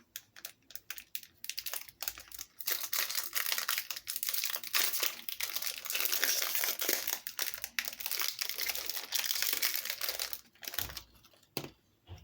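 Packaging of a mini Pokémon card deck crinkling and crackling steadily as it is torn open, with one sharp click near the end.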